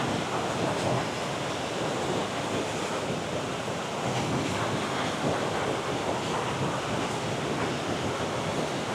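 Steady rush of a rain-swollen creek and waterfall, white water running high.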